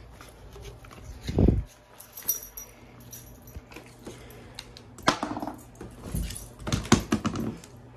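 Dogs' metal collar tags jangling as Belgian Malinois move about and play with toys. There is a dull thump about a second and a half in, and a cluster of knocks and rustles from about five seconds on.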